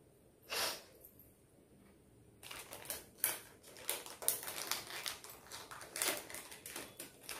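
Jewelry and its packaging handled by hand: a brief rustle about half a second in, then a run of quick clicks and crinkles from about two and a half seconds on.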